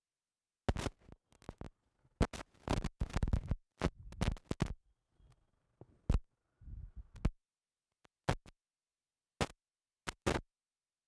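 Scratchy rustling and brushing noises close to the microphone, in short irregular bursts with dead silence between them, dense for the first few seconds and then coming only now and then: handling or clothing rub on the teacher's headset microphone.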